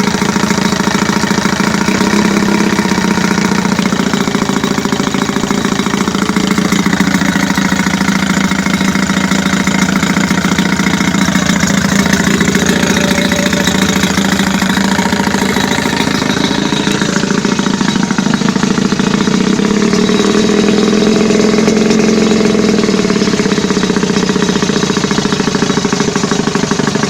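Johnson 15 hp long-shaft two-stroke outboard motor running steadily, with small shifts in engine pitch a few times along the way.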